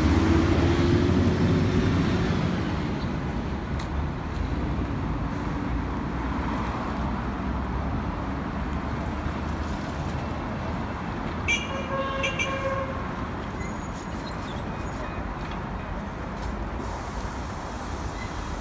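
Road traffic on a busy city street: a steady rumble of passing vehicles, loudest in the first couple of seconds, with a short horn toot about twelve seconds in.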